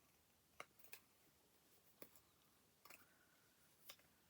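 Near silence: room tone with a few faint, light clicks and taps spread through it.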